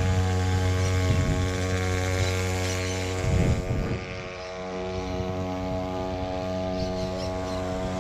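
Small outboard motor on a kayak running steadily at an even pitch, briefly unsettled about three and a half seconds in and a little quieter after.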